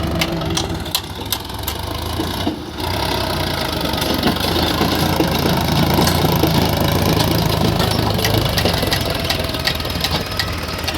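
Heavy diesel engine running steadily, with scattered knocks and clicks. It drops out briefly just before three seconds in, then comes back louder.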